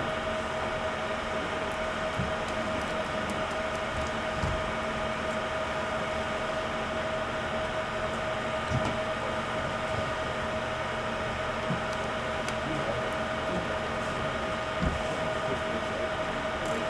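A few light clicks and knocks of a small screwdriver and laptop parts being handled as screws go back into the back plate, over a steady hum with a constant high whine.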